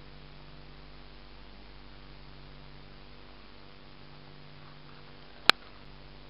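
Steady low electrical hum with faint hiss, and one sharp click near the end.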